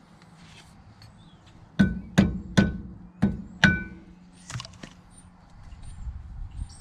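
Hammer driving a chisel against a nut to tighten it: five sharp metal-on-metal blows about half a second apart, each with a short ringing tone, followed by two lighter knocks.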